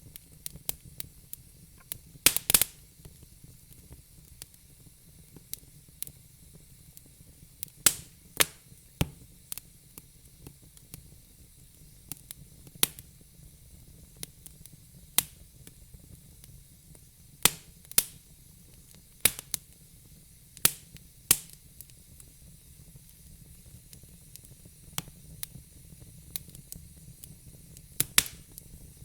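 Crackling fire: irregular sharp pops and snaps of burning wood over a faint steady hiss, with a loud cluster of snaps a couple of seconds in and again near the end.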